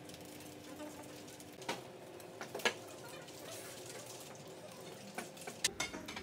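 Scattered light clicks and taps from a small tool and parchment paper being handled on a desk, over a faint steady hum. The clicks come in a few clusters, the sharpest in the middle and several close together near the end.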